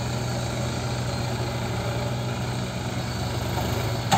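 Diesel engines of tractors and a backhoe loader running steadily, a low, even drone.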